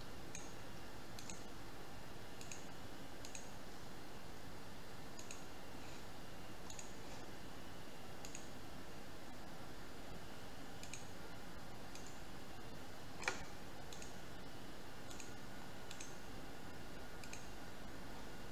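Computer mouse buttons clicking now and then, light single clicks a second or so apart, with one louder click about two-thirds of the way through, over a steady hiss.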